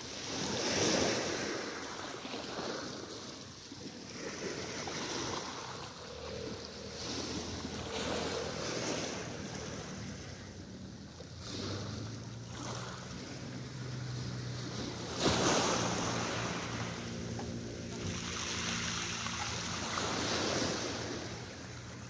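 Small sea waves washing onto the beach, swelling and falling again and again, loudest about a second in and again about fifteen seconds in. A low steady hum joins underneath from about halfway.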